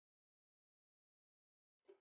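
Near silence, with one faint, short scrape of a spatula stirring thick masala gravy in a metal kadai near the end.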